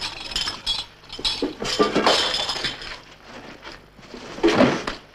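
Clinking and rattling of small hard objects being handled, in several short clusters, with a louder knock about four and a half seconds in.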